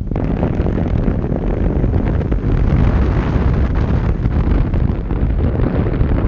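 Loud, steady wind buffeting the microphone of a rig-mounted action camera as the airflow rushes past a flying paraglider.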